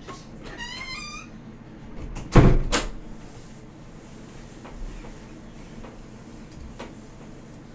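A door's hinge gives a short wavering high squeak, then a little over two seconds in the door bangs shut with a loud knock and a smaller knock just after.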